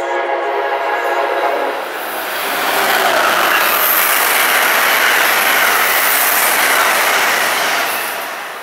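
Amtrak Northeast Regional train with an ACS-64 electric locomotive sounding a chord on its horn for about two seconds as it approaches, then running through the station at speed. The passing cars make a loud, steady rush of wheels and air that fades near the end as the last car goes by.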